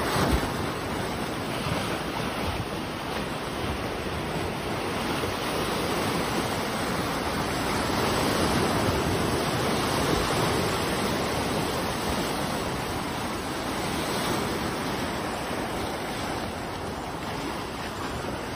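Waves of the flooded Yangtze River washing against the bank, mixed with wind buffeting the microphone: a steady rushing noise.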